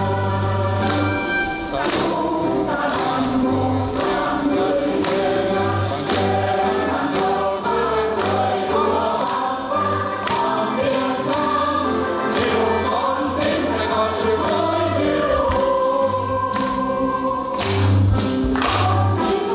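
Mixed choir of men and women singing a song together over instrumental backing with a steady beat.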